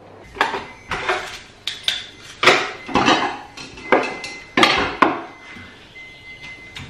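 Kitchen clatter of crockery and cutlery being handled: a string of about eight sharp knocks and clinks over five seconds, then quieter.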